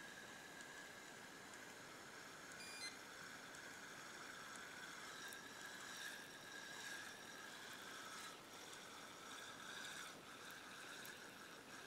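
Near silence: faint night ambience by the water, with a steady faint high-pitched drone throughout and one short faint beep about three seconds in.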